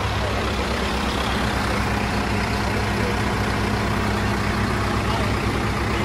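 Backhoe loader's diesel engine idling steadily, with an even low throb.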